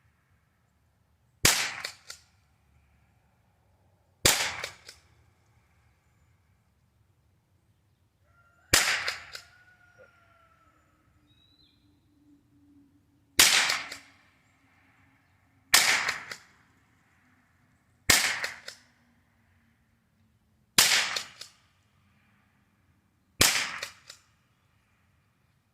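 Henry H003T pump-action .22 LR rifle firing eight shots, one every two to four and a half seconds. Each is a sharp crack with a short fading tail.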